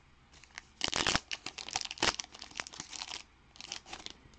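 A foil trading-card pack wrapper being torn open and crinkled. The rustling comes in a dense run between about one and three seconds in, with a shorter run near the end.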